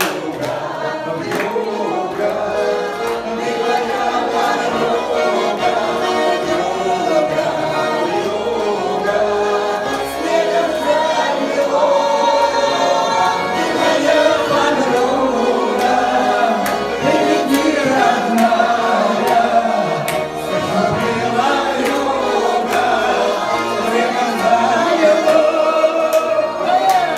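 Several voices singing a Russian folk song together, with a garmon (Russian button accordion) accompanying.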